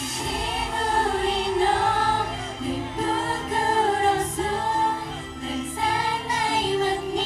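Thai idol pop song performed live over a stage PA: a group of young women singing together in unison over a backing track with a steady drum beat, the music coming in loudly right at the start.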